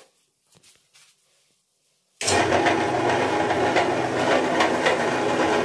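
An electric meat grinder switches on about two seconds in and runs steadily with a loud mechanical rattle and hum. Before that there are only a few faint clicks of plates being set down.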